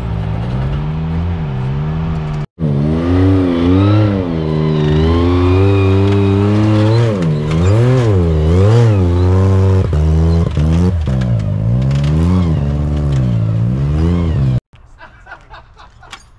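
A four-wheel drive's engine revving up and down over and over under the throttle, as when working a vehicle over off-road terrain. It cuts off abruptly about two and a half seconds in, comes straight back, and stops suddenly near the end.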